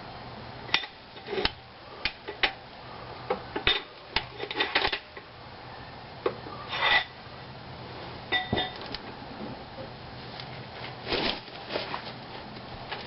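Irregular metallic clicks and clinks of a 3/8-inch ratchet, swivel and 15 mm socket working a hub-to-spindle bolt loose, some clinks ringing briefly.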